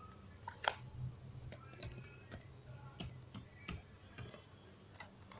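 Faint computer keyboard keystrokes and mouse clicks: about ten separate sharp clicks, unevenly spaced, as a short text label is typed into a software dialog.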